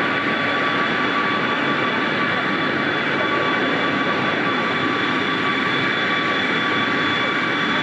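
Jet aircraft turbine running steadily: an even rushing roar with a steady high whine on several pitches, unchanging throughout.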